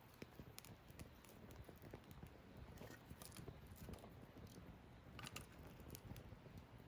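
Wood campfire crackling faintly, with scattered sharp pops and a few louder clusters of pops about three and five seconds in.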